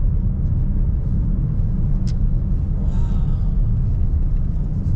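Steady low road and engine rumble inside a moving car's cabin, with a brief click about two seconds in.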